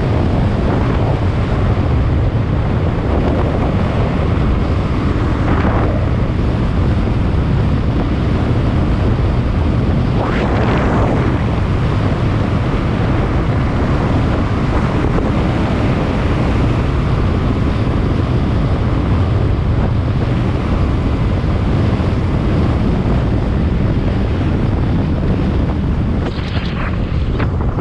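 Steady wind buffeting the microphone of an action camera moving along a road, with a brief louder rush of noise about ten seconds in.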